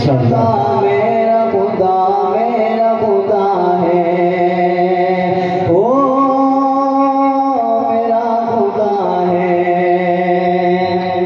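A man singing a naat, a devotional Urdu hymn, in a solo voice with long held, ornamented notes. About six seconds in, his voice glides up to a high note and holds it, then falls back to the lower line.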